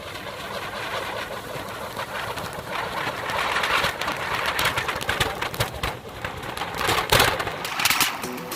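Anar fountain fireworks hissing and crackling as they spray sparks, the hiss starting abruptly and growing louder after a few seconds.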